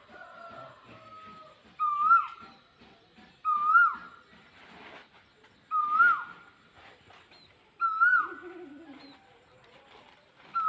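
A bird calling over and over, a loud whistled note that rises and then drops sharply, five times about two seconds apart, with fainter lower calls between.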